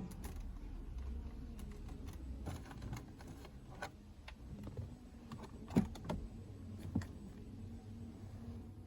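Scattered light clicks and taps of handling, with a few sharper knocks about six and seven seconds in, over a faint low hum.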